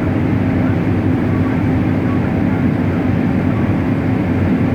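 Combine harvester running steadily while harvesting corn: a continuous low engine and machinery drone that does not change.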